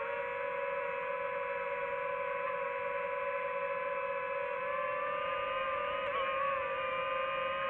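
DJI FPV drone's motors and propellers whining steadily while it hovers, with a brief wobble in pitch about six seconds in as the throttle shifts.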